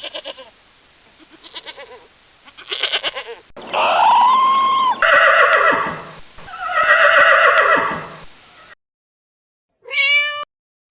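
A run of separate animal calls spliced from different recordings, some bleat-like, with a loud pitched call that rises and falls about four seconds in and a short pitched call near the end.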